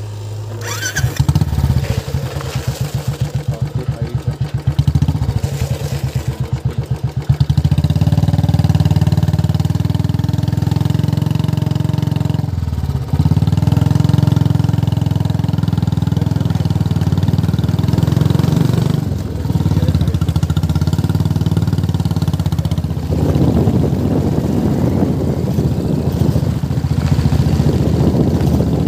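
Motorcycle engine running while riding, with wind noise on the microphone. The engine pulses for the first several seconds, then settles into a steady note that dips briefly about thirteen seconds in.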